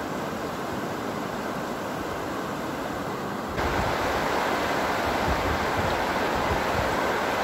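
Steady rushing of water spilling over a reservoir overflow weir, which jumps louder about three and a half seconds in.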